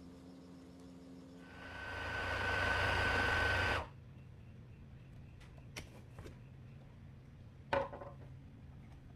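A Queen's Life electric food processor's motor starts, builds up with a steady whine, and runs for about two seconds as it grinds peanuts and honey into peanut butter, then stops suddenly. A few light clicks and a knock from the plastic lid follow.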